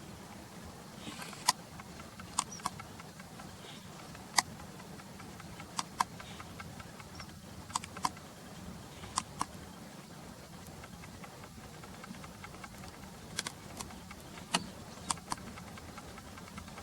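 About fifteen sharp, single clicks at irregular intervals over a steady low hum.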